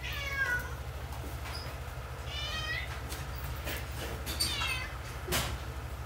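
A cat meowing several times, short high calls a second or two apart, over a steady low machine hum in a dairy barn. A single sharp knock about five seconds in.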